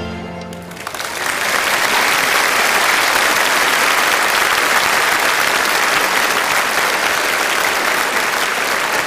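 The folk band's last held note dies away in the first second, then a large audience applauds steadily.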